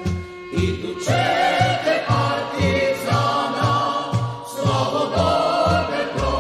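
Choir singing a Yugoslav partisan march song over a band accompaniment, with a steady marching beat in the bass about twice a second; the voices come in about a second in after a short pause.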